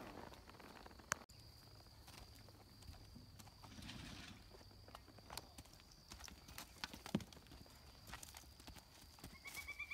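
Quiet, sparse hoof falls of a horse standing and stepping on grass and dirt, a few separate clicks and thuds. A faint steady high tone runs behind, and a high pulsing tone starts near the end.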